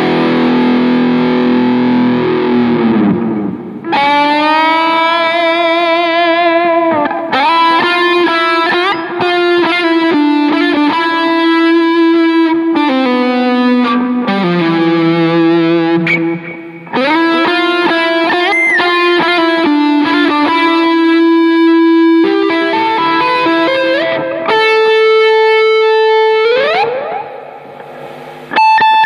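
Electric guitar playing a slow dangdut lead melody one note at a time: long held notes with vibrato, string bends and slides, broken by short pauses between phrases.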